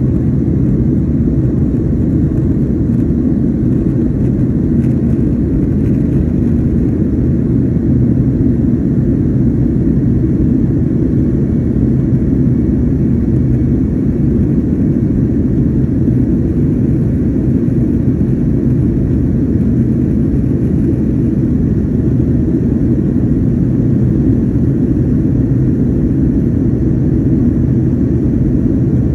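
Steady low rumble of jet engines and rushing air heard inside an airliner cabin in flight.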